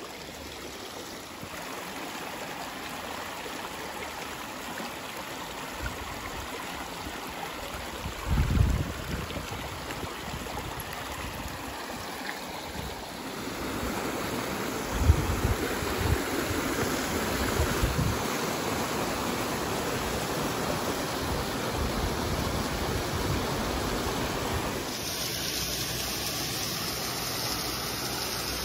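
Mountain creek water rushing and splashing over granite boulders and through a rock chute, a steady wash that grows louder about halfway through. A few dull low thumps break in about a third of the way in and again past the middle.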